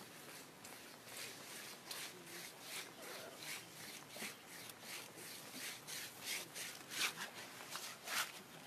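Rhythmic rustling and crunching of grass from an Asian elephant close by, about two to three strokes a second, loudest near the end.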